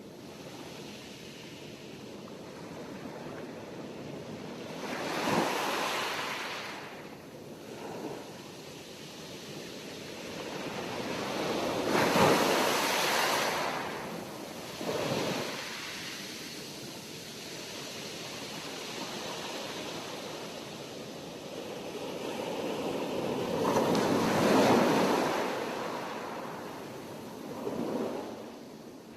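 Sea waves breaking and washing in, with no tones. Three big surges crash, about five seconds in, near twelve seconds and near twenty-four seconds, with smaller waves between.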